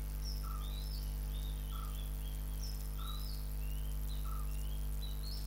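Faint bird chirps over a steady low electrical hum. One short chirp repeats roughly every second and a quarter, with quicker, higher chirps scattered between.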